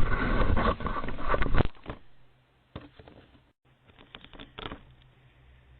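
Loud crackling rubbing and handling noise close against a doorbell camera's microphone for about two seconds, consistent with the camera being covered up. Then a few faint clicks over a low steady hum.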